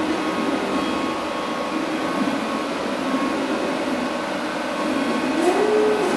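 Steady hum and whir of the cooling fans and pan/tilt motors of 575 W Hotu moving-head stage lights. A short motor whine rises in pitch and then holds about five seconds in as a head moves.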